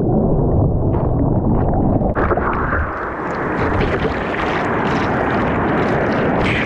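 Ocean surf churning and sloshing against a camera held at the water's surface, a heavy low rumble at first. About two seconds in it turns into a brighter, hissing rush of water.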